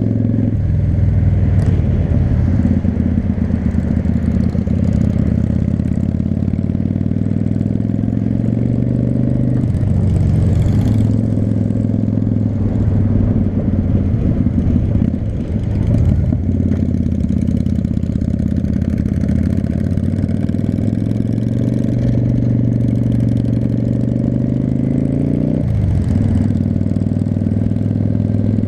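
V-twin cruiser motorcycle engine running at riding speed, its note changing in pitch several times with throttle and gear changes, about a third of the way in, around halfway and near the end.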